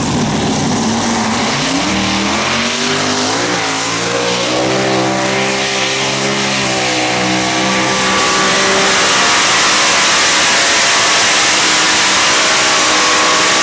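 Multi-engine modified pulling tractor at full throttle under the load of the sled. Its engines climb steeply in pitch over the first few seconds, then hold a loud, steady roar, with dirt spraying from the rear tyres.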